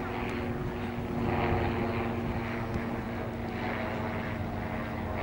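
A steady engine drone that holds a constant pitch throughout.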